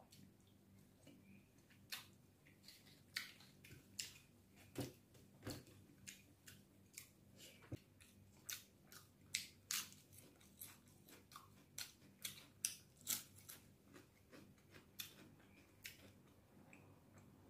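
Close-miked eating sounds: a man chewing with his mouth, making a string of irregular sharp wet clicks about two a second, quiet overall.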